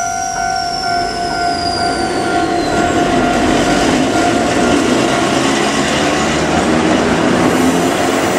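Vintage Kotoden electric train cars (Nos. 120, 500 and 23) running, with rumbling wheel and motor noise that grows louder. In the first three seconds a steady high tone fades out, along with a thin whine falling in pitch.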